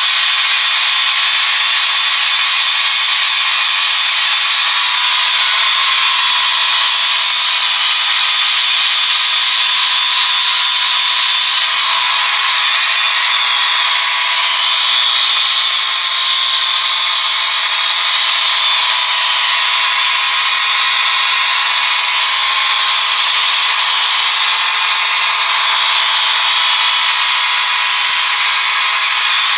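Many fire alarm horns and horn-strobes (Wheelock, Siemens, Gentex Commander 3 and System Sensor units) sounding all at once, their tones piling up into one dense, steady blare with no pattern heard. Really loud.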